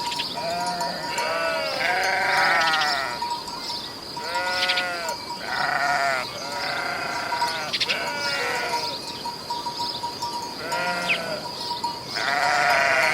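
Sheep or goats bleating in a long series of calls, some overlapping, each about half a second to a second long, with a short pause about two-thirds of the way through. A steady high-pitched tone runs underneath.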